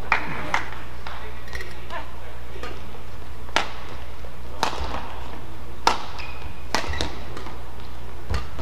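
Badminton rackets striking a shuttlecock in a rally: five sharp hits, roughly one a second, starting a few seconds in, over a steady low hum.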